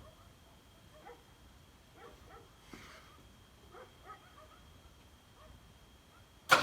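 A dog whimpering and yipping faintly now and then, then a sudden loud burst of noise just before the end.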